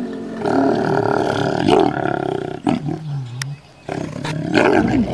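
A lion roaring and growling in long, deep calls, broken by a short pause a little past the middle.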